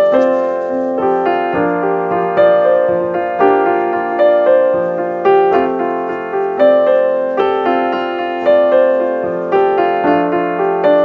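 Background piano music: notes and chords struck a little more often than once a second, each ringing and fading.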